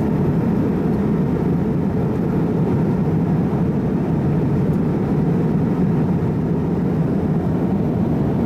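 Steady cabin roar inside an MD-88 airliner on approach: a constant low rumble of engine and airflow noise at an even level.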